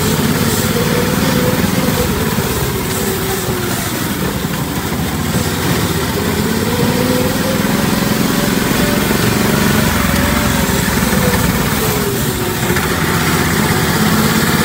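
Off-road buggy's small engine running under way, its pitch slowly rising and falling with the throttle.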